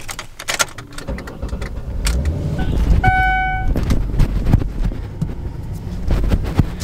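Keys jangling and clicking at a car's ignition, then the car's engine starts and runs with a low rumble. A short electronic warning tone sounds about three seconds in.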